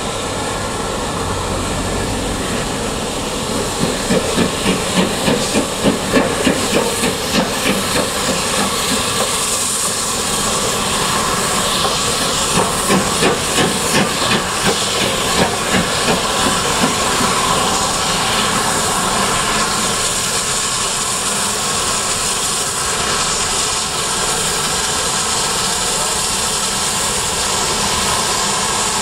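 Steam locomotives working a train out of a station: two runs of rhythmic exhaust chuffs at about two a second, one about 4 seconds in and another around 12 to 17 seconds, over a steady hiss of escaping steam.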